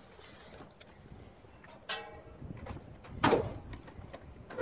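Metal hood of a 1979 Pontiac Trans Am being worked at its front edge: a short squeak, then two loud clunks about a second and a half apart.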